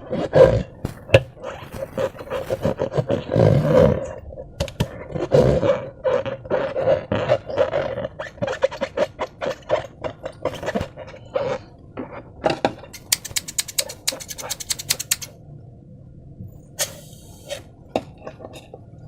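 Slime being squeezed and squished by hand, a long run of short wet squelches and sticky pops, with a quick rattling run of clicks about two thirds of the way in.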